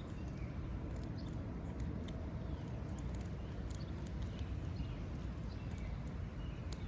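Steady low outdoor rumble with scattered faint clicks and a few faint short chirps.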